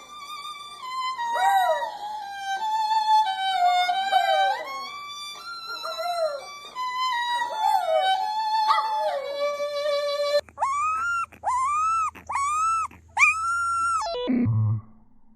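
A dog yelping and howling over a violin-led tune, its calls sliding downward against the melody. About ten seconds in, the music gives way to four separate high howls, each rising and then falling, followed by a low thump.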